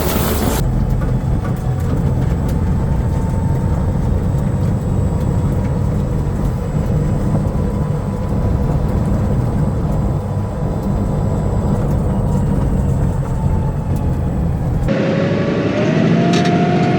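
Vehicle engine running steadily, a dense low drone, with the sound changing abruptly about half a second in and again near the end, where a wavering whine comes in.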